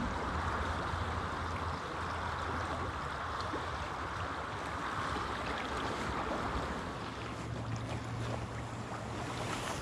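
Steady rush of a river's current flowing over a shallow, rippling run, with a low rumble of wind on the microphone underneath.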